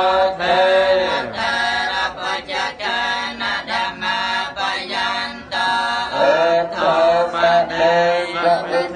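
Theravada Buddhist chanting: a group of voices reciting together in a steady, drawn-out chant, with a brief break about five and a half seconds in.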